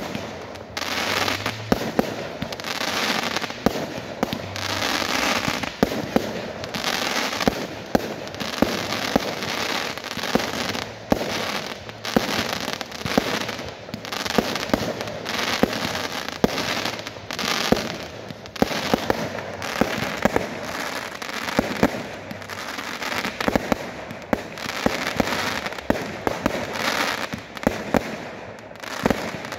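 Fireworks display in a continuous barrage: many sharp bangs of bursting shells over waves of crackling and hissing that swell every second or two.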